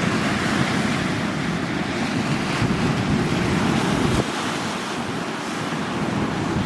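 Sea waves washing ashore in a steady rush, with wind buffeting the microphone; the low wind rumble drops away about four seconds in.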